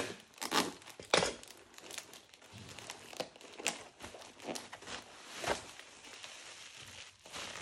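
Packaging crinkling and rustling as it is handled, with scattered short clicks and light knocks.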